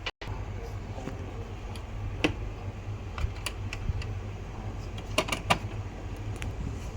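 A handful of light, sharp clicks and taps, three close together near the end, over a steady low hum.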